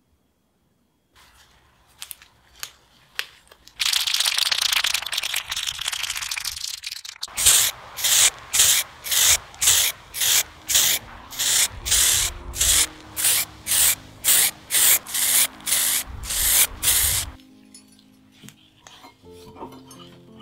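Aerosol spray paint hissing onto hand-drill parts: a few clicks, then one continuous spray of about three seconds, then a long run of short spray bursts about two a second. Soft background music comes in underneath and carries on alone near the end.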